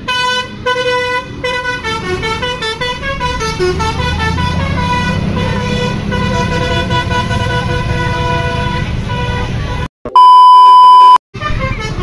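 Multi-note "telolet" bus horn playing a stepping melody as a tour bus passes, with the bus's engine rumbling under it from about a third of the way in. About ten seconds in, a single loud, steady beep lasts about a second, with a short gap of silence on either side.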